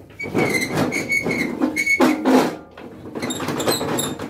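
Snowblower chute crank and its gear linkage being turned, metal rubbing on metal with a rasping scrape and a high squeal that repeats several times.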